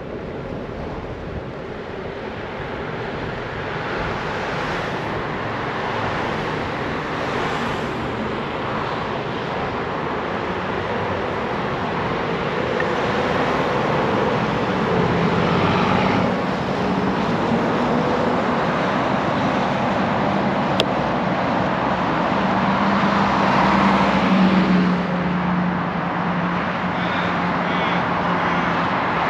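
Road traffic at a multi-lane intersection: cars driving past, the noise growing gradually louder, with one vehicle's steady low engine hum through the second half.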